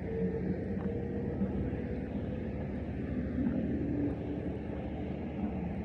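Steady low rumble of motor vehicle engines, with faint engine tones that come and go.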